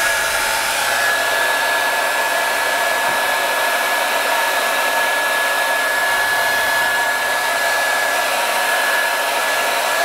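Rospec HD8812W folding hair dryer running on its cold-air setting: a steady rush of fan noise with a high whine held on one pitch, which rises into place as the motor spins up at the very start.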